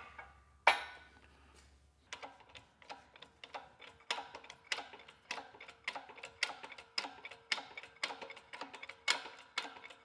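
A sharp metal knock about half a second in, then from about two seconds light, quick metal taps, roughly three a second, seating a socket down onto the nut on the John Deere 4300's front-axle ring-gear shaft. The taps are kept gentle so the socket doesn't wedge on the shaft.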